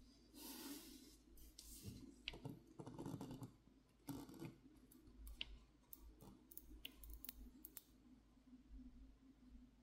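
Faint scrapes and sharp clicks of small hand repair tools against a Samsung Galaxy Z Flip6 as it is taken apart. The scraping comes in short patches during the first half, with scattered single clicks throughout.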